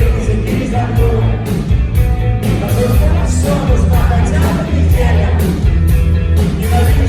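Punk rock song played loudly by a band, with drums, bass, electric guitar and a singing voice.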